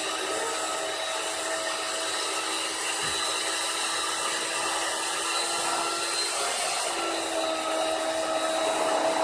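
A small electric motor running steadily with a high whir and a hum. Its pitch drops slightly about seven seconds in.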